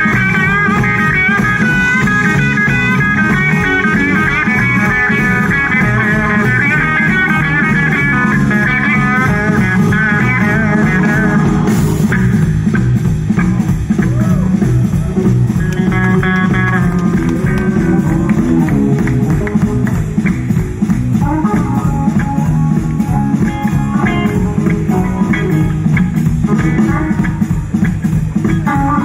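Live blues-rock band playing: an electric guitar solo with bent, wavering notes over drums, bass guitar and organ. About 12 seconds in the solo line ends, and the rest is the band vamping with organ chords coming forward.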